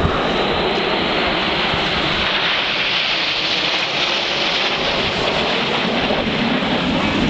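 Jet noise from the Red Arrows' formation of BAE Hawk jets passing overhead, a steady rushing noise that is loudest about three to five seconds in.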